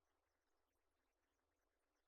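Near silence: digital silence with only a faint noise floor.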